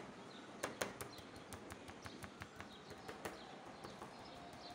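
Wooden rolling pin tapping chicken breasts through cling film on a plastic cutting board to flatten them: a run of light, irregular knocks, several a second, with a couple of sharper ones about a second in.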